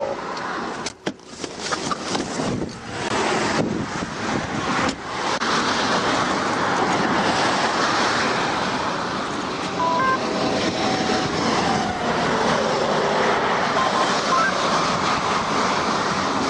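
Steady noise of highway traffic going by a roadside traffic stop, with a few sharp clicks in the first five seconds.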